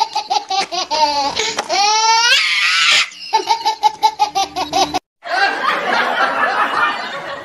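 Edited-in laughter sound effect: a fast, high-pitched cackling laugh, a rising squeal about two seconds in, then more cackling; after a brief cut about five seconds in, a noisier stretch follows.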